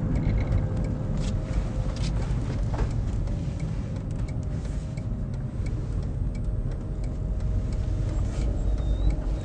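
Cabin sound of an electric Citroën Berlingo van driving slowly: low road and tyre rumble with a faint steady whine from the electric drive and a few light clicks.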